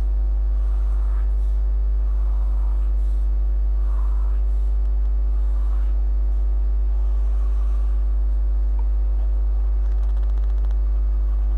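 Steady, loud, low electrical mains hum, with faint strokes of a felt-tip marker drawing lines on paper over it.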